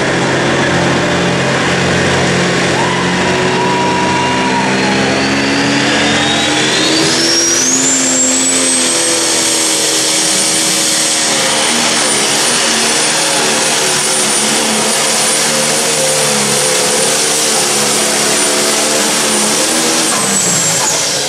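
John Deere Pro Stock pulling tractor's turbocharged diesel engine running hard under load as it pulls the sled. A high turbo whistle climbs steeply between about six and eight seconds in, holds, and falls away right at the end as the engine comes off throttle.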